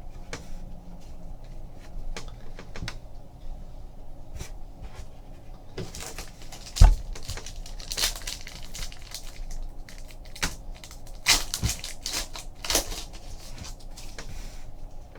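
Trading card packs and cards being handled on a table: foil wrappers crinkling and tearing and cards being flicked and set down in scattered clicks and rustles, with one louder thump about seven seconds in.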